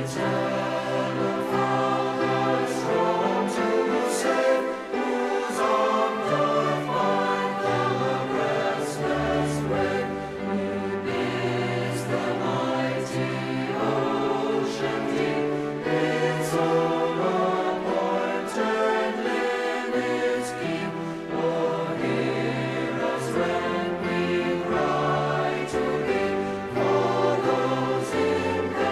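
Music: a choir singing sustained chords.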